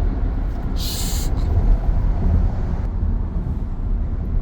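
Road noise inside a moving car's cabin on the freeway: a steady low rumble, with a short hiss about a second in.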